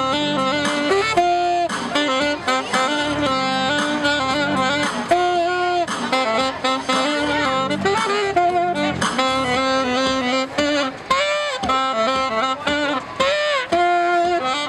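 Background music: a jazzy instrumental with saxophone and guitar, playing steadily.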